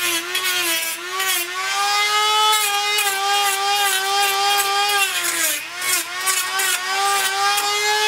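Handheld rotary tool with a cut-off disc, whining at high speed as it cuts a tripod head. Its pitch sags briefly about a second in and again a little past halfway, when the disc bites into the work, and recovers each time.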